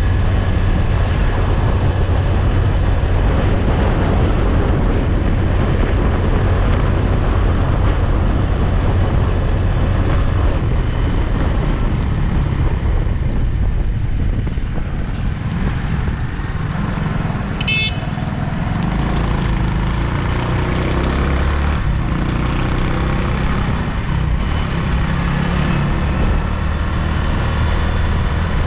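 Street traffic noise heard while riding along a road, with steady wind rumble on the microphone. A brief high horn toot sounds about two-thirds of the way through.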